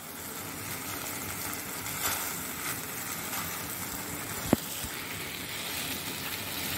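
Chopped tomato, onion and capsicum sizzling steadily in a saucepan on the stove, with one sharp knock about four and a half seconds in.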